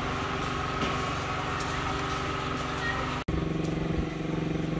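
Steady engine hum of an idling vehicle; about three seconds in it cuts off abruptly and a second, slightly louder steady engine hum takes over.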